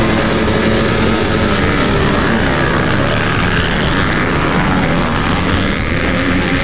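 A pack of motocross dirt bikes revving hard together, many engine pitches rising and falling over one another as the riders leave the starting gate and climb away.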